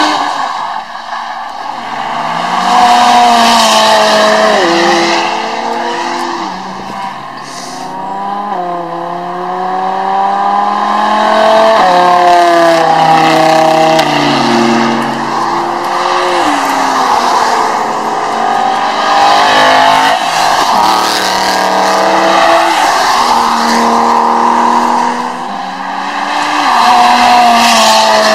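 Supercar engines accelerating hard on a race circuit: the pitch climbs through each gear and drops back at every upshift, again and again, the sound swelling and fading as cars pass. An orange McLaren goes by close near the end.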